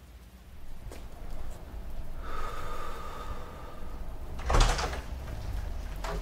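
An apartment door being answered: a faint click about a second in, then a louder, short noisy burst about four and a half seconds in as the door is opened.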